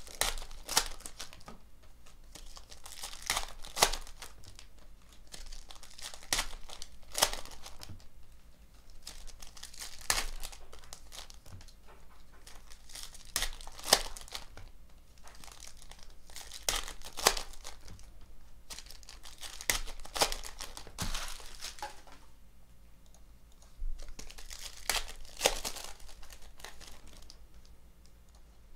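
Foil packs of 2018-19 Panini Select basketball cards being torn open and crinkled one after another, in bursts of crackling every few seconds. It dies down near the end.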